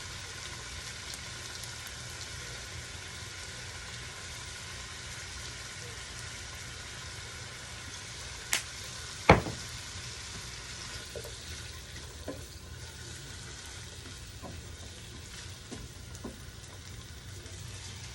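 Chicken pieces with ginger and onion sizzling steadily as they fry in a pot, just seasoned with fish sauce. Two sharp knocks come about halfway through, the second the loudest, with a few light clicks after.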